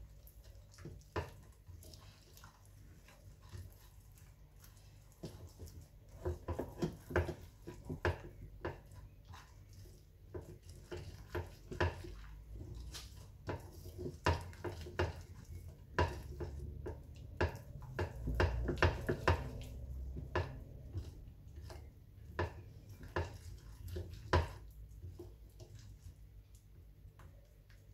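Gram-flour batter being mixed by hand in a cut-glass dish: irregular clicks and taps against the glass, busiest in the middle stretch, thinning out near the end.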